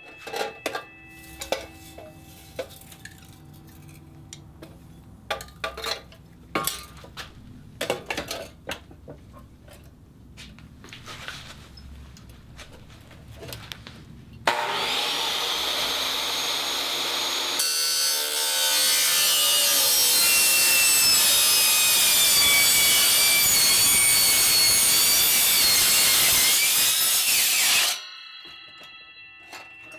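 A saw cutting through a stainless-steel tumbler: about halfway through it starts up and runs loud and steady, with high ringing tones that slowly drop in pitch, then stops near the end. Before it come scattered knocks and clatter of the tumbler being handled.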